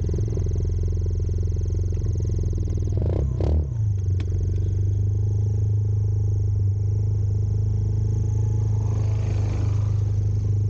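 X-PRO STORM's small single-cylinder engine running at a steady speed, with a brief break in the sound about three and a half seconds in.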